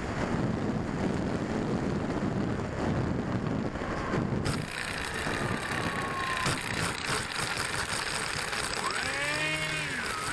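Wind rushing over the Quanum Observer FPV plane's onboard microphone as it glides with the motor off. Near the end, the plane's electric motor spins up, a whine that rises and dips in pitch.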